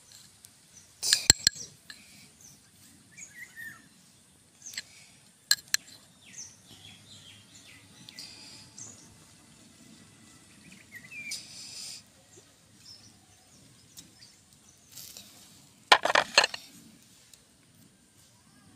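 Steel spoon clinking and scraping against a glass bowl and plate a few times while serving tamarind pickle, the loudest clatter about a second in and near the end. Birds chirp faintly in the background.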